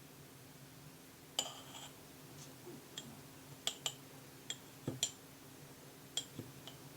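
Light clinks and taps of kitchenware being handled, about a dozen sharp knocks at irregular moments, some with a brief ringing, over a faint steady hum.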